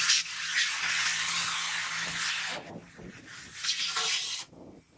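Car wash water spray hissing against the car, cutting off a little past halfway, followed by a few softer splashing or rubbing sounds.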